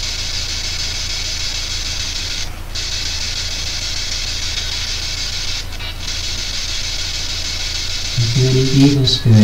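Loud steady radio static hiss from a P-SB7 ghost box spirit box, over a low hum, briefly dropping out twice. A man's voice starts near the end.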